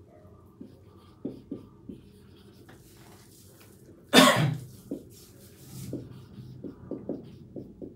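A single loud cough about four seconds in, over soft taps and scratches of a marker writing on a whiteboard.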